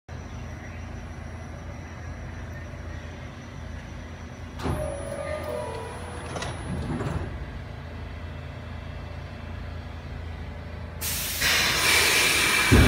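R46 subway train standing at the platform with a steady low hum. There are two brief clunks with short tones about five and six and a half seconds in, then a loud burst of air hiss near the end as the brakes release before it departs.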